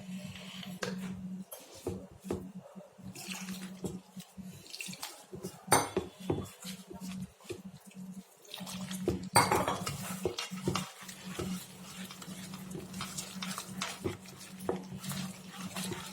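Kitchen utensils and dishes clinking and clattering in irregular knocks during food preparation, over a steady low hum.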